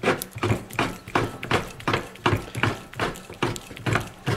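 Swiss Army knife corkscrew being twisted into a wine bottle's cork, with a short sound at each turn of the wrist, about three a second.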